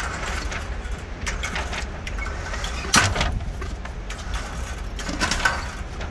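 Indoor range target carrier running, bringing a paper target up its track to the shooting bench over a steady low hum. A single sharp knock sounds about three seconds in, and a few smaller knocks come near the end.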